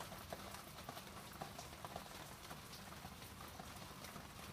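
Light rain falling: scattered drops patter irregularly over a faint steady hiss.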